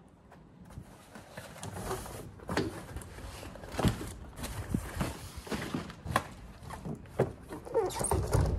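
Cardboard parcels being pulled from the back of a van and set down on the road: a string of knocks and thumps with scraping and rustling of cardboard.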